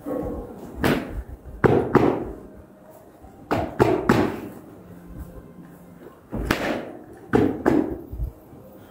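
A series of sharp slaps and thumps, mostly in groups of two or three about a third of a second apart: a handler patting a saddled horse.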